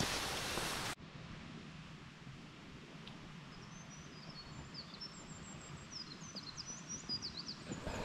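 Small birds chirping in a forest: short, high, quickly rising and falling calls that come more often in the second half. Before the birds, a steady hiss cuts off abruptly about a second in.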